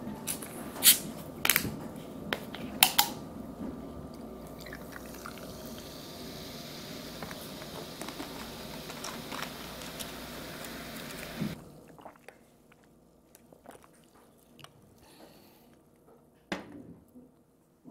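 Ginger ale poured over ice into a glass, a steady fizzing hiss of carbonation that cuts off suddenly about eleven seconds in. A few sharp clicks come in the first three seconds, and a soft knock of the glass comes near the end.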